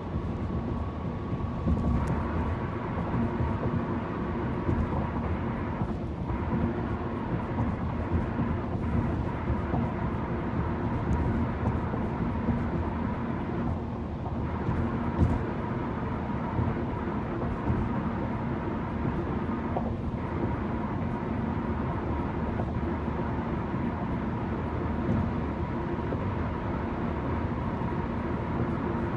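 Loud tyre roar inside a car's cabin from driving on old, rough concrete highway pavement: a steady roar with a faint hum running through it. A few sharp jolts come through from bumps in the road, about 2 and 15 seconds in.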